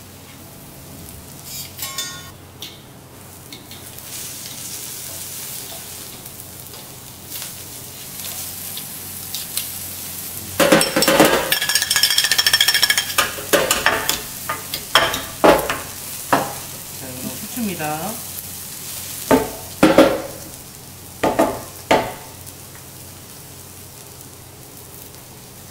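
Vegetables sizzling on a steel teppanyaki griddle. About ten seconds in, a stainless steel seasoning shaker rattles and clinks for a couple of seconds. Then comes a series of sharp clacks and knocks as the shakers are flipped, caught and knocked against each other and the griddle.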